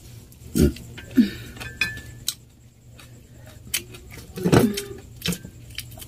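Scattered light knocks and clinks of plates and hands handling food at a meal table, a second or so apart, with a louder knock about four and a half seconds in.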